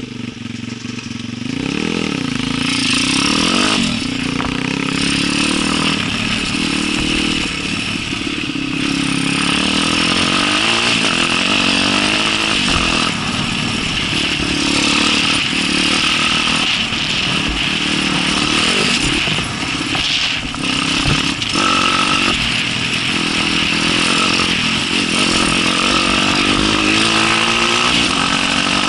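Small enduro dirt bike engine revving up and down again and again as it is ridden, getting louder about two seconds in.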